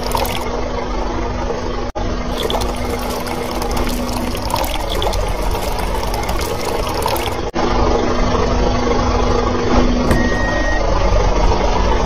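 Water pouring and splashing into a small basin and into a toy dump truck's plastic bed, with a steady low hum underneath. The sound breaks off for an instant twice.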